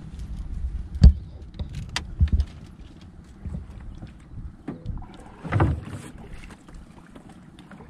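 Knocks and thumps in a small fishing boat while the longline is worked, over a low rumble. The loudest knock comes about a second in, two more follow about a second later, and a longer thump comes past the middle.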